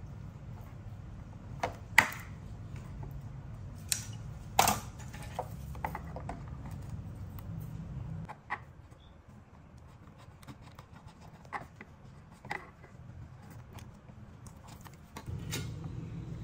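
Small metal parts and hand tools being handled: scattered sharp clicks and knocks, the loudest about two seconds in, over a low steady hum that stops about eight seconds in and comes back near the end.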